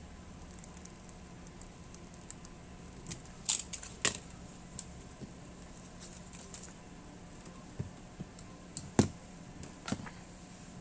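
Light handling noises while a table tennis rubber sheet is trimmed around a blade with a utility knife and the offcut peeled away: soft scraping with a few sharp clicks and knocks, two close together about three and a half seconds in and two more near the end.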